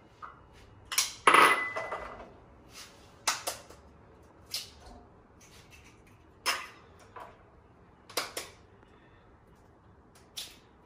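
Kitchen clatter: a string of sharp knocks and clinks from a frying pan and cookware as eggs are cracked and handled over the pan. The loudest, just over a second in, rings on briefly like struck metal.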